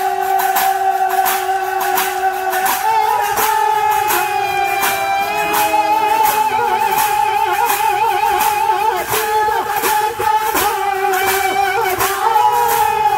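Bhagait devotional folk music: voices singing long held notes that bend slightly in pitch, over metal percussion, likely hand cymbals, struck in a steady rhythm.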